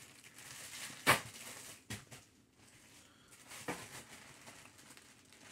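A package being handled and opened by hand: faint rustling, a sharp click about a second in, and a few softer knocks.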